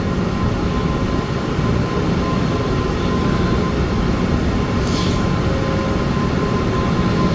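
Steady low machinery rumble with a constant thin whine above it, and a brief hiss about five seconds in.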